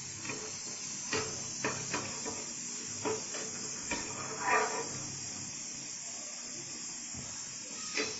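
Chicken gravy of onion and meat juices cooking down in a pan on a gas stove, giving a steady sizzling hiss, with a few light knocks scattered through it.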